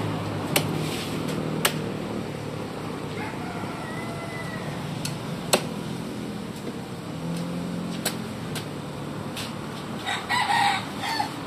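Steel cleaver chopping chicken on a wooden chopping block, with about eight sharp chops spread through. In the background a rooster crows faintly about three to four seconds in, and chickens call in a short choppy burst near the end.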